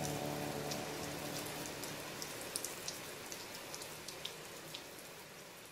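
Rain patter: a soft hiss dotted with light ticks, fading out steadily.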